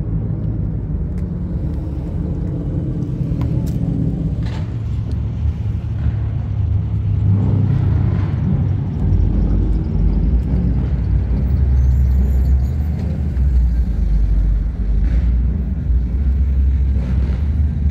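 Car engine running with a low rumble, growing louder and lower about halfway through.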